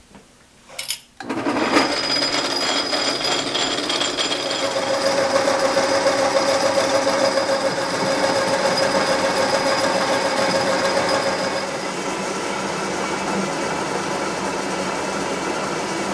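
Hardinge Cataract bench lathe starting about a second in, then running with its tool boring out a ring cut from 3/8-inch plate: a steady metal-cutting noise, with a ringing tone from about four to twelve seconds in.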